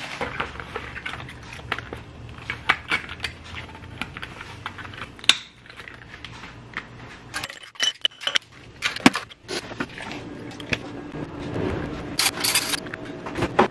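Kitchen clatter while an iced drink is made: a shaker bottle shaken, then irregular clicks and clinks of a can, a spoon and a glass jar being handled, with a brief hiss near the end.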